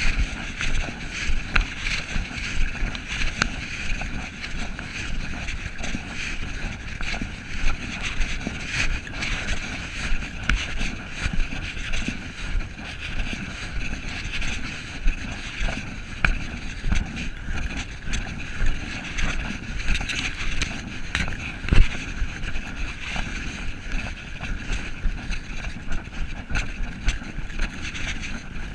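Walking noise from a camera carried on a forest hike: irregular footsteps and rubbing and knocking of the camera against the canvas panel beside it, over a steady hiss of wind on the microphone, with one sharper knock about two-thirds of the way through.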